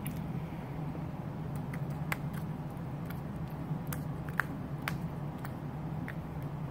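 A steady low hum with a few scattered light clicks and taps, about six of them, the sharpest a little after four seconds in.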